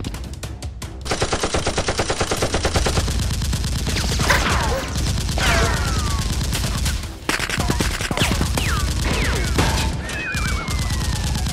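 Gunfire sound effects: a rapid burst of automatic fire about a second in, then scattered shots mixed with several falling whistling tones, one long falling tone near the end.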